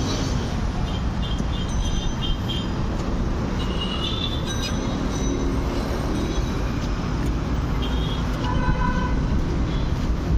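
Steady road traffic rumble, with short car-horn toots several times and a longer lower-pitched horn blast near the end.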